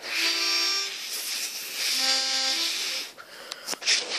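Accordion sounding two held chords of about a second each, the second coming about two seconds in on different notes.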